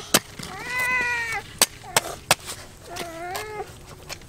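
A cat mewing: two drawn-out calls about two seconds apart, each rising at the start, held, then falling away, with three sharp clicks in between.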